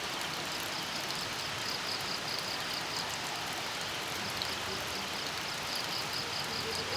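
Steady rain, with crickets chirping in an even, quick pulse of several chirps a second that breaks off for about a second around the middle.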